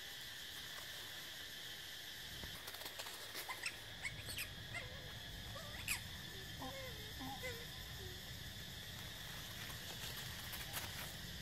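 Steady high buzz of insects, with dry leaves rustling and crackling as macaques move over the leaf litter. From about five seconds in, a monkey gives a string of short, high squeaks.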